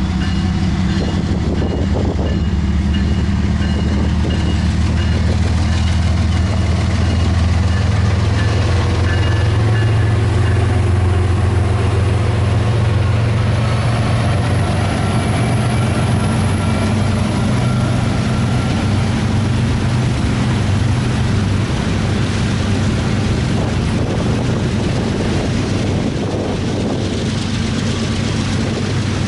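Diesel freight train passing close by: the KCS and Union Pacific diesel locomotives run at the head of the train, their engine note loudest in the first half and easing off. After that the long string of tank cars and covered hoppers rolls steadily along the rails.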